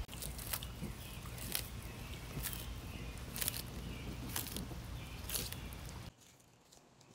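Sulcata tortoises biting and crunching crisp lettuce and hibiscus flowers, a short crisp bite about once a second over a low rumble, stopping about six seconds in.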